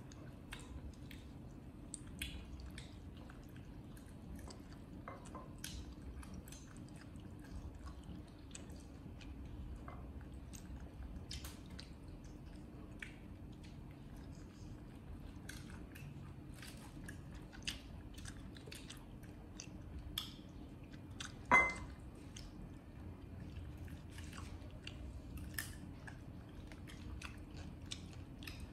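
Monkeys chewing and biting food: many small, irregular clicks and crunches. One brief, much louder sharp sound comes about two-thirds of the way through.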